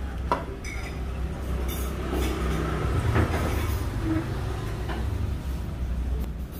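Low steady rumble of road traffic, with a few light clicks and clinks of tableware.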